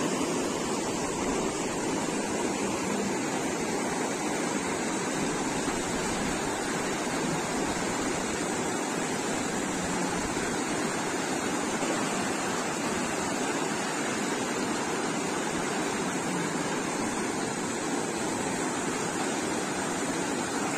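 Mountain river rushing and splashing over boulders in shallow white-water rapids, a steady, even rush of water.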